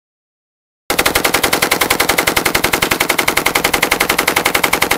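M249 SAW light machine gun firing one long, sustained burst of rapid, evenly spaced shots, starting about a second in.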